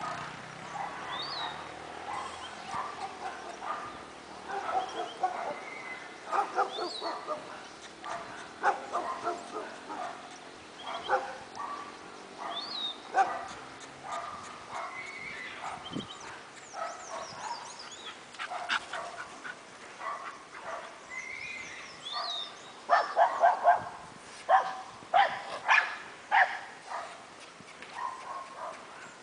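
Small dog barking and yapping again and again in short bursts, loudest in a run of quick barks in the last quarter.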